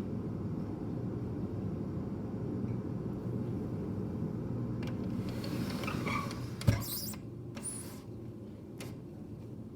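Apartment boiler-room noise: a steady low rumble with a constant hum, carried into the apartment. A sharp knock sounds about two-thirds of the way through.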